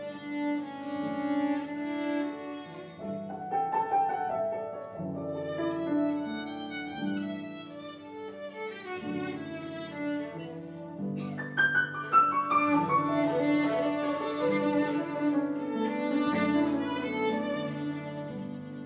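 Violin and grand piano in a free improvisation, the violin bowing lines over the piano's chords. The playing grows louder and busier a little past halfway.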